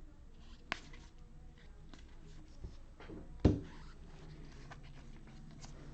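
Trading cards being handled and flipped through: a sharp click a little under a second in and a louder tap or knock about three and a half seconds in, with faint card rustles between.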